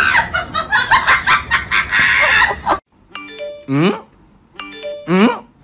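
Loud, dense jumble of sound that cuts off abruptly about three seconds in. It is followed by a short electronic chime figure that repeats twice, about a second and a half apart, each time with a rising swoop in pitch.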